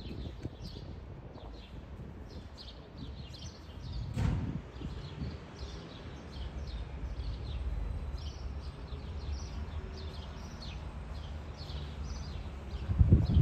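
Small birds chirping over and over, with a steady low rumble beneath. There is a brief low thump about four seconds in and a louder one near the end.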